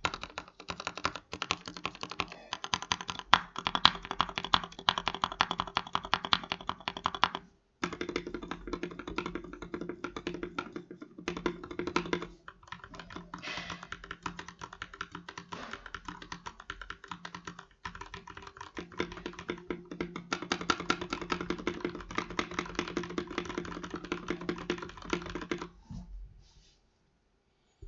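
Budget custom mechanical keyboard being typed on rapidly: a dense run of key clacks in several long stretches with short pauses between them, stopping about two seconds before the end.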